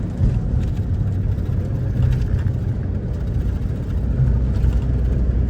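Minibus cabin noise while driving: a steady low engine and road rumble.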